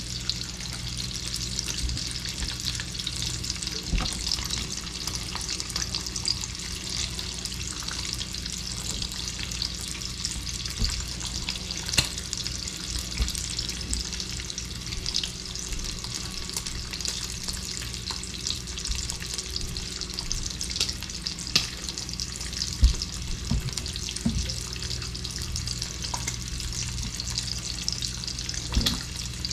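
Bacon sizzling and crackling steadily as it pre-cooks, with a few sharp clicks and knocks scattered through, the loudest about 23 seconds in.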